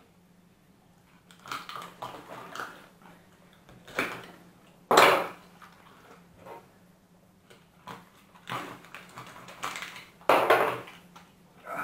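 Kitchen knife cutting out a carp's backbone, with irregular knocks and clatter of the blade against the cutting board and table; the loudest knocks come about five seconds in and again near ten and a half seconds.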